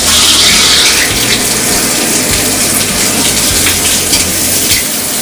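Shower running: a steady, loud hiss of water spraying and splashing into a bathtub.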